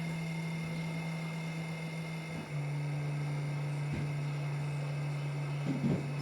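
Fan on a Maker Select 3D printer making a weird steady drone, with a faint high whine above it. The drone drops slightly in pitch about two and a half seconds in, and there are a few light knocks near the end.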